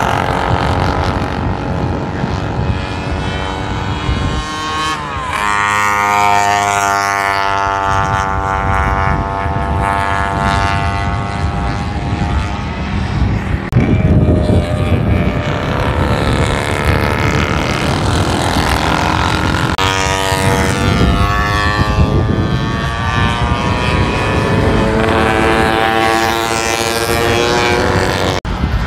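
Vintage racing motorcycles running hard on a race circuit. Their engine notes rise and fall in pitch as the bikes accelerate, shift and go past, with more than one machine heard at a time.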